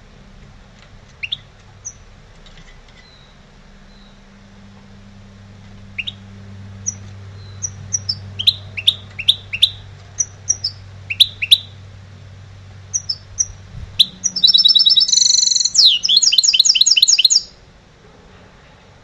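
Goldfinch hybrid (mixto) singing: scattered short, sharp chirps and twitters, then about fourteen seconds in a loud, fast, unbroken run of trilled notes lasting about three seconds.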